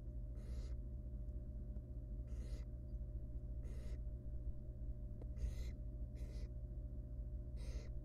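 Barn owl nestling's begging calls: six short hoarse hisses, the so-called snoring call, each under half a second and spaced a second or two apart. A steady low hum runs beneath them.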